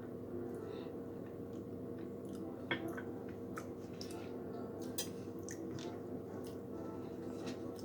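A person chewing a mouthful of ice cream with crunchy streusel pieces: scattered wet mouth clicks and smacks over a steady low hum.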